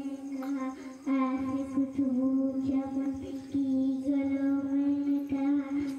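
A young girl singing a naat into a microphone, one voice holding long steady notes, with short breaks between phrases.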